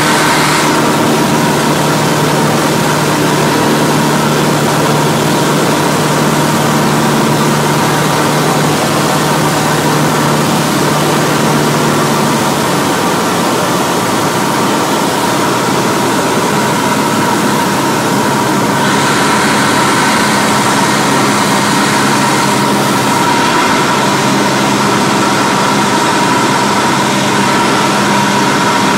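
Cessna 172's 180 hp piston engine and propeller, heard from inside the cabin in flight as a loud, steady drone. The engine note changes about twelve seconds in.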